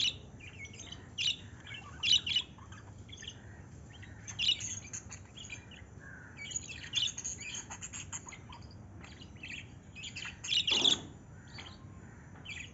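Several birds chirping and calling in quick, irregular short notes, with a louder burst of calls near the end.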